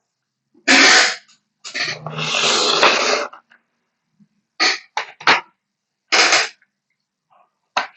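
Packaging and plastic keycap sets being handled and moved: short bursts of rustling, then a few sharp clicks about five seconds in.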